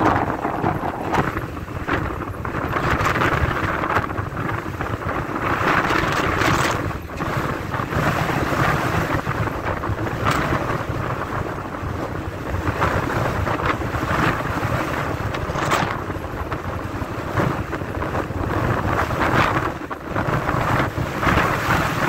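Strong, gusty windstorm wind buffeting the microphone: a loud, low rushing rumble that swells and eases with each gust, with a few brief knocks.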